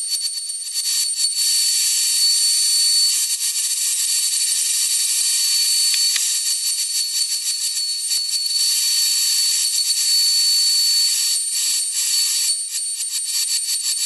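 Router table running at high speed, its bit trimming the edge of a solid-body guitar blank to a template: a loud steady high whine with hissing cutting noise that swells and dips as the wood is fed past the bit.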